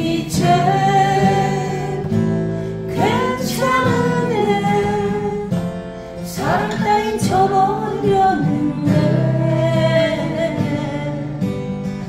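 A singer with acoustic guitar accompaniment: a sung melody over strummed chords.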